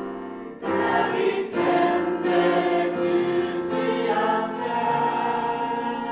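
Mixed youth choir singing an Advent song in harmony, holding long chords. There is a short break about half a second in before the next sung phrase.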